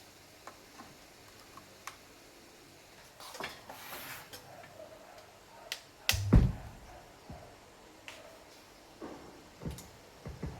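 Scattered small clicks and knocks from handling things on a workbench, with one heavier thump about six seconds in.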